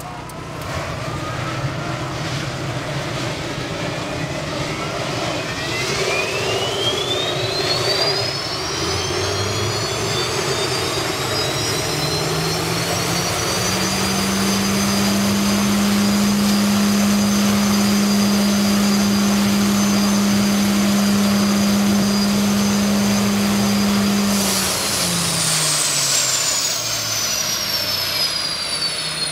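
Unlimited hydroplane's gas-turbine engine starting up on the trailer: a high whine climbs steeply over the first several seconds as it spools up, settles into a steady running whine with a low hum under it, and then winds down with a falling whine near the end as the engine is shut down.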